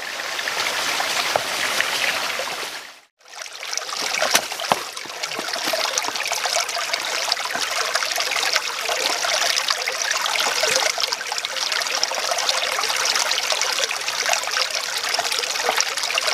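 Small, shallow rocky stream trickling over stones, a steady running-water sound that cuts out for a moment about three seconds in and then resumes.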